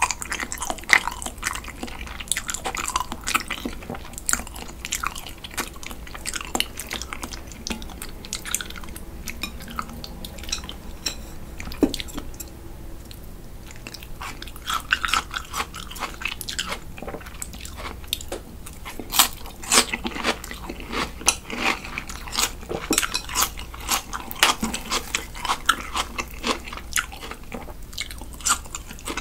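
Close-miked eating sounds: raw salmon flesh pulled from the skin by hand and chewed, with sharp crunching bites of sliced raw onion, coming thick and fast in the second half.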